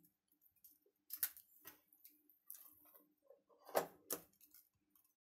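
Spatula scraping and tapping against steel cookware as thick cooked gram-flour batter is turned out onto a steel plate: a few faint clicks and scrapes, the two loudest close together near the end.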